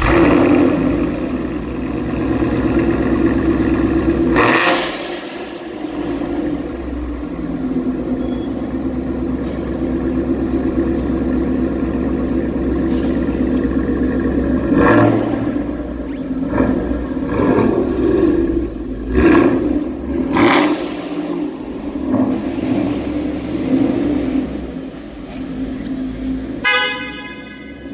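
Ford Mustang V8 with a Roush performance exhaust running just after start-up. It holds a loud, high idle for about four seconds, then settles to a steadier idle. About halfway through come several short throttle blips, each a sudden surge of exhaust noise.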